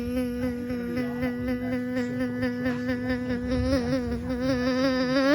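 A young child's voice holding one long, buzzing hum on a low steady pitch, wavering with a quick wobble and creeping up in pitch near the end.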